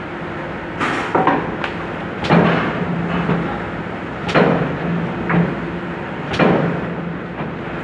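Hand-fed sheet die-cutting machine running through its cycle: a heavy mechanical clunk about every two seconds as it strikes each sheet, with lighter clacks in between over a steady hum.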